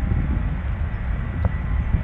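Wind buffeting the microphone in an uneven low rumble, over the faint, steady sound of jet airliners on a distant runway.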